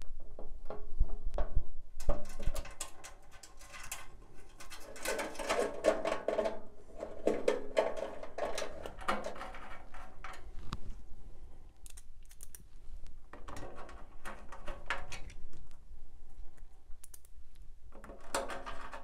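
Clicks, taps and light rattles of small screws, nuts and hand tools handled against a metal computer case, coming in irregular bursts.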